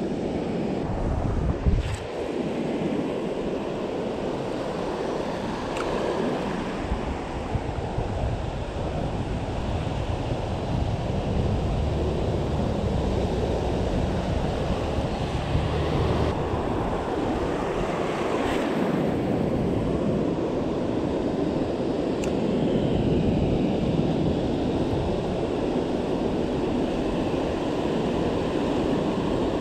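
Surf breaking and shallow water washing over a pebbly shore, a steady wash of noise, with wind rumbling on the microphone.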